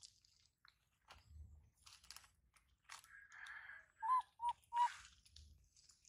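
Small crackles and crinkling from a plastic snack packet and dry leaf litter as a baby macaque handles the packet and moves off. It is followed about four seconds in by three short chirps in quick succession, which are the loudest sounds.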